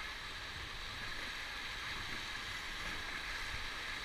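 River rapids rushing around a raft: a steady rush of fast-moving whitewater.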